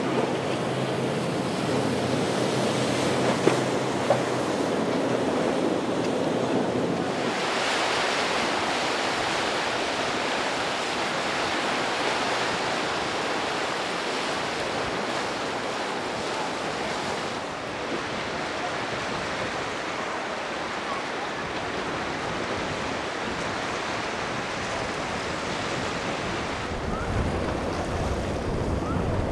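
Steady rush of surf and waves with wind buffeting the microphone, changing abruptly in tone twice. A low boat-engine rumble joins near the end.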